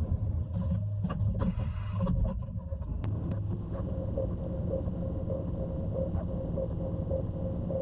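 CNC milling machine running: a steady low hum with a pulsing tone, a few short bursts of hiss and a sharp click in the first three seconds as the table moves, then steady running while the end mill cuts aluminium under flood coolant.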